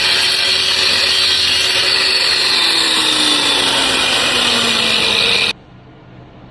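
Angle grinder grinding down a weld bead, a loud steady whine whose pitch gradually drops over its last few seconds, then cuts off abruptly about five and a half seconds in.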